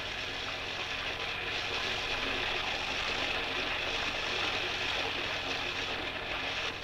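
Steady rushing, spraying water, an even hiss with no breaks.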